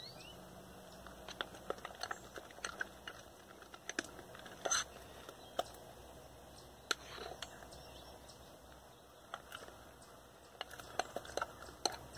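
Spoon stirring and folding thick glue-and-saline slime in a glass bowl: faint, irregular clicks and taps of the spoon against the glass and the sticky mass.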